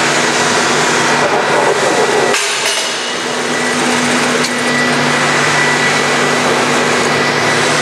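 Forrest Model 236 traveling-table bandsaw running with its 3/4-inch, 8-tooth-per-inch blade while the table is pushed to cut a block of low-density foam, together with a dust-collection vacuum running; a steady hum with a high whine over it.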